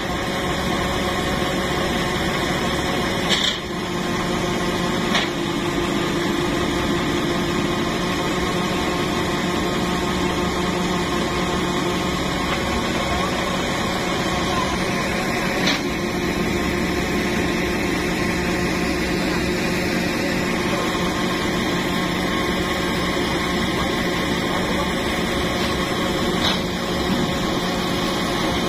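Truck engine idling steadily, with a few short knocks.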